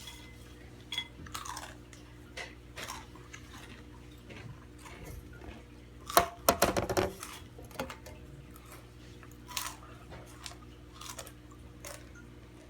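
Crunching and chewing of Takis rolled corn tortilla chips, with light clinks of a bowl, in short scattered bursts; a louder, denser run of crunching and rattling comes about six seconds in.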